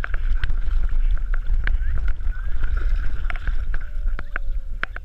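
A dog swimming, water sloshing and splashing close around a camera strapped to its back, with a heavy low rumble and irregular splashy clicks.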